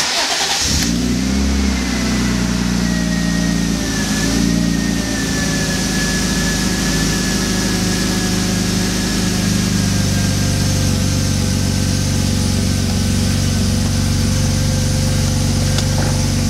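BMW E36 engine cranked by the starter and catching within about a second, then idling steadily. A faint high whine slowly drops in pitch over the first several seconds as the idle settles.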